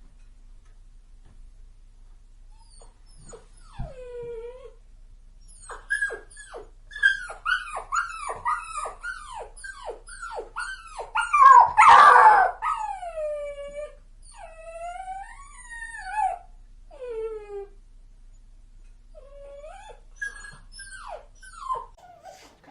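Puppy crying: a quick run of short, high whimpers that fall in pitch, about two a second, builds to a loud howling cry about twelve seconds in. Longer drawn-out falling whines follow, and a few more whimpers come near the end.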